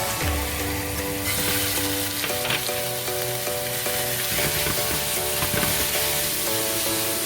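Beef sizzling as it fries in hot oil in a pan; the hiss gets louder and brighter about a second in.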